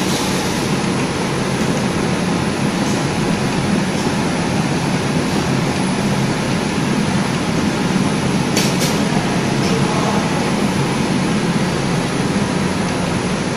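FQ-FD-600 rotary air filter paper pleating machine running, a loud, steady mechanical noise from its scoring rollers and pleating mechanism, with two sharp clicks a little past halfway.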